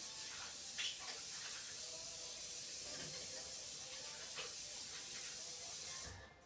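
Steady high hiss with a few faint clicks, cutting off about six seconds in.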